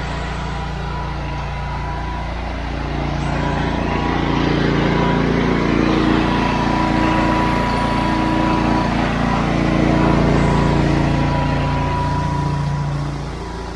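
Honda IGX800 V-twin engine on a pressure-washer rig running steadily under load from a surface cleaner. It grows louder about three seconds in and eases near the end. It shows no sign of bogging down on its new resistor ignition coils, though it is still warming up.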